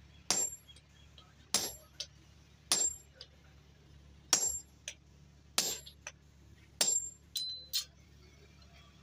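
Hand-forging on an anvil: a hammer strikes a square-faced top tool held on red-hot steel six times, about one blow every second and a quarter, each with a bright metallic ring and a light tap right after. Near the end come two lighter metal clinks as the tools are shifted.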